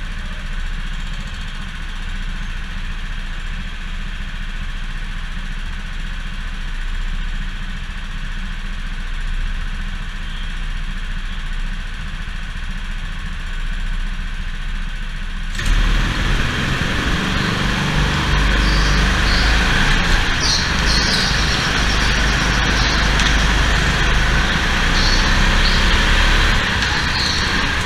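Onboard sound of a go-kart engine running hard through a lap. About halfway it abruptly becomes louder and fuller.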